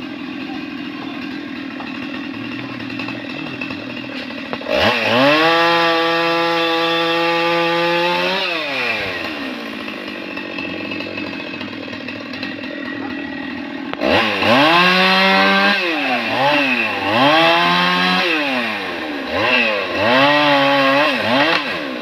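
Petrol chainsaw idling, then revved up to a high, steady scream for about four seconds and let back down to idle. In the last eight seconds it is revved up and down over and over in quick succession as it cuts into a thick tree limb.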